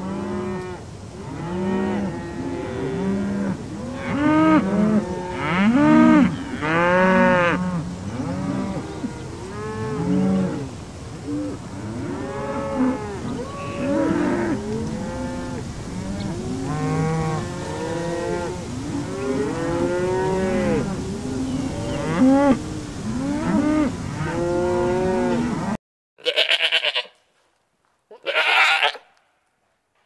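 A herd of cattle mooing, many long calls overlapping, each rising and falling in pitch. Near the end it cuts off suddenly, and two short, higher bleats from a young goat follow.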